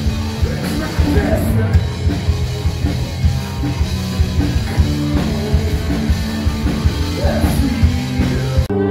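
Rock band playing live: drum kit, electric guitar and bass guitar with singing. Near the end the music breaks off abruptly and a different song starts.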